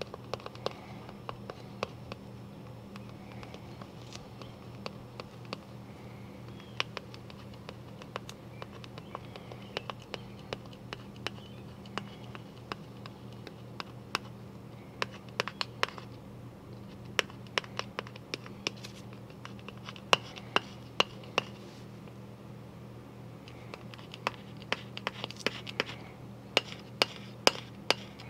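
Fingers and thumb rubbing clear vinyl stencil film down onto a plastic disc golf disc to press out air bubbles: scratchy rubbing with many sharp, irregular clicks, thicker in the second half and loudest near the end, over a steady low hum.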